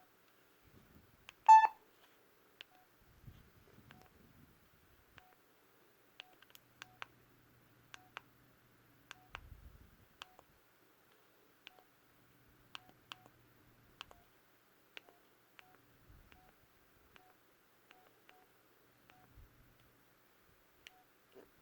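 Samsung Gusto 3 phone's keypad being pressed over and over: faint button clicks, each with a short, quiet key beep, and one louder beep about a second and a half in. A few soft low bumps from the phone being handled.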